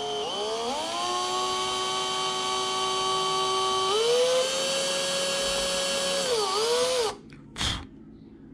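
Electric drill running while drilling a hole through a small board. The motor's whine climbs as it spins up and holds steady, steps up in pitch about four seconds in, dips briefly, then stops about seven seconds in. A short burst follows near the end.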